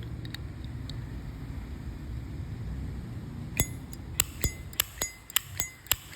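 A Zippo Slim lighter making a run of sharp metallic clinks, about eight in two and a half seconds, each with a brief ring, starting about halfway in: the hinged lid being flicked open and snapped shut over and over. Before that there is only a low background rumble.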